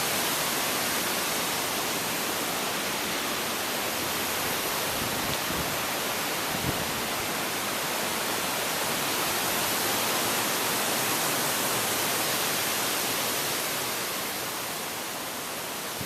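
Strong straight-line storm winds rushing through trees: a steady loud rush that eases slightly near the end, with a brief thump about six and a half seconds in.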